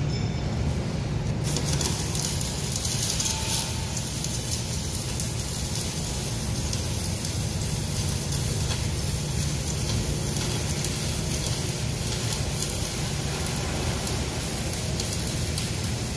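Electric arc welding: the arc strikes about a second and a half in and then runs as a steady crackling sizzle, with a steady low hum underneath.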